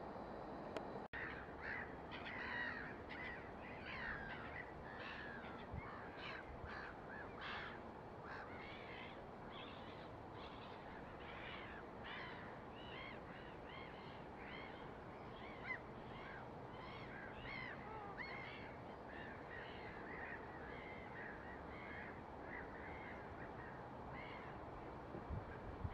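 Faint chorus of many birds calling at once, short chirping calls overlapping continuously over a steady low background hiss.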